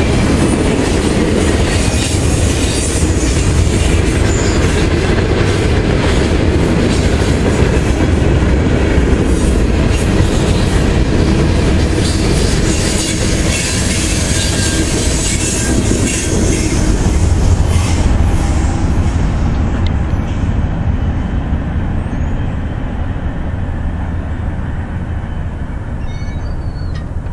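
Norfolk Southern freight cars rolling past, steel wheels running over the rails. The noise falls away about two-thirds of the way through as the end of the train goes by.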